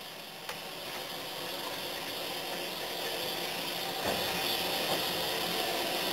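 Steam hissing from beneath BR Standard Class 2MT 2-6-0 steam locomotive 78019 as it creeps slowly forward, the hiss growing steadily louder, with a faint click about half a second in.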